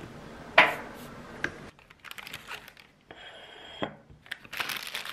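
Food being set down on a ceramic plate: a sharp knock with a short ring, a couple of lighter knocks, then a paper bag rustling and crinkling near the end.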